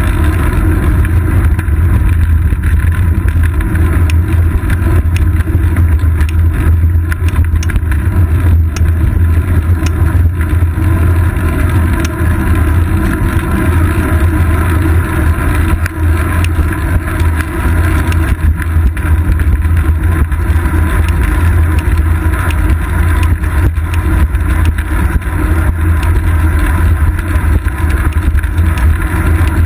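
Steady, loud low rumble of a road bike riding on pavement, picked up by a GoPro Hero 2 mounted on the seat post: wind and road vibration on the camera.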